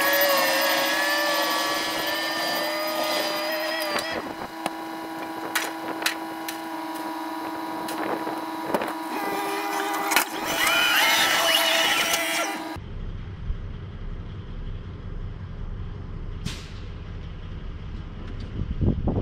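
Diesel heavy equipment running, a steady hum under several high whining tones, with a few knocks. About 13 seconds in it cuts off abruptly, leaving a low, noisy background with one brief falling whistle.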